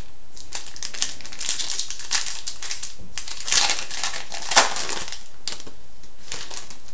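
Foil trading-card pack wrapper crinkling as it is handled and torn open, in uneven crackles that are loudest between about three and a half and four and a half seconds in.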